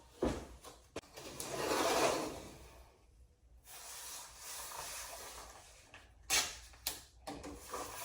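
Painter's tape being pulled off its roll with a rasping rip about a second in, then softer rubbing as it is pressed down, with a few sharp clicks from handling.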